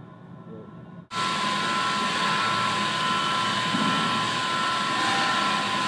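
A machine's steady running noise with a constant whine, cutting in suddenly about a second in.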